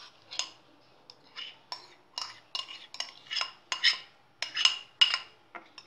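Metal spoon scraping and clinking against a glass bowl as soaked vermicelli is scraped out, about a dozen short ringing clinks at roughly two a second.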